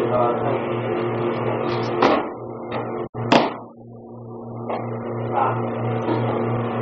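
Steady low hum from an old camcorder recording, broken by two loud thuds about a second apart, with a brief dropout between them.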